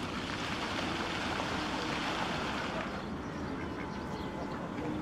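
Steady rushing background noise with no distinct events, rough and uneven in the low end, the kind left by wind on the microphone.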